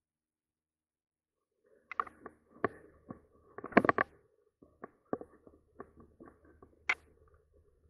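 Mountain bike rattling and clunking as it rolls over a dirt trail: irregular sharp knocks and clicks, starting about two seconds in, loudest a couple of seconds later.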